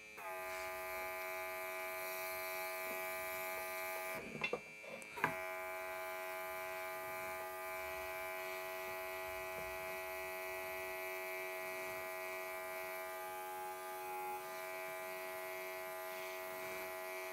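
Worx WX742 Maker X airbrush's built-in compressor running with a steady electric buzz while paint is sprayed. It cuts out for about a second around four seconds in, with a couple of clicks, then starts again.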